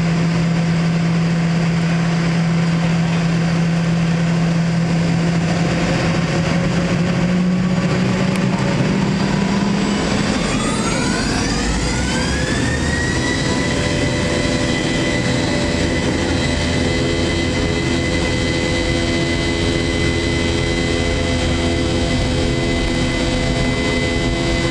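Boeing 717's rear-mounted Rolls-Royce BR715 turbofan, heard from the cabin right beside it, running with a low hum. About ten seconds in it spools up: a whine rises in pitch over a few seconds, then holds steady at the higher power.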